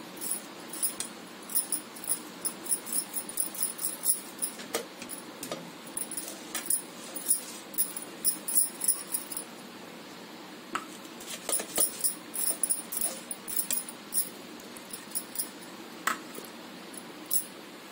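Steel plate of cooked mango pulp being jiggled and knocked against a stone countertop to spread the pulp evenly: a run of short metallic clinks and knocks, a few a second, with brief pauses.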